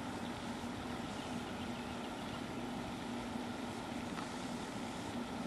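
Steady low hum under an even background hiss, unchanging throughout.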